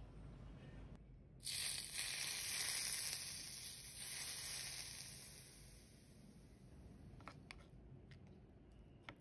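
Hot oil poured over chopped scallions and ginger. It sizzles sharply about a second and a half in and slowly dies away over several seconds. A few light clicks follow near the end as a spoon stirs the sauce.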